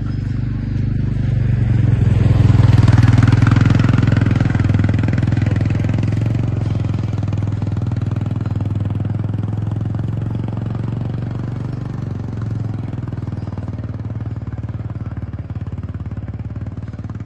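Engine of a side-by-side utility vehicle running as it drives past and away down a dirt track, loudest about three seconds in and then slowly fading as it goes off.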